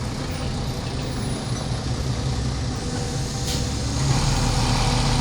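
Hino dump truck's diesel engine running steadily, getting louder about four seconds in, with a brief hiss of air at about three and a half seconds.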